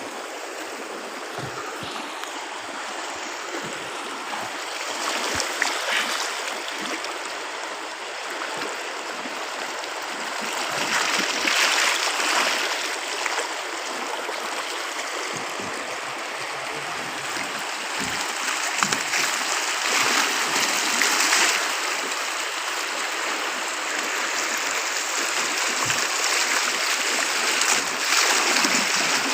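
Fast-flowing floodwater of a swollen river, rushing steadily, with the rush swelling louder several times.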